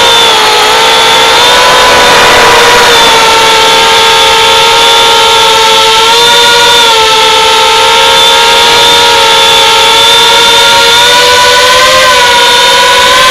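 FPV quadcopter's brushless motors and propellers whining steadily in flight, recorded on board the quad. The pitch wavers a little up and down with the throttle.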